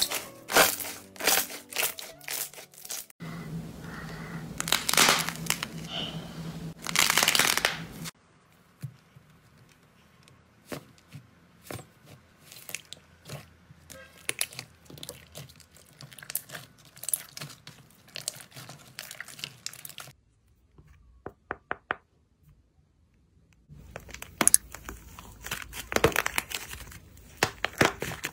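Hands working slime. Sharp snapping pops come as a clear slime film is pulled apart, then softer scattered crackles. Near the end there is dense crackling as a green slime with a dried, cracked crust is squeezed and its shell breaks.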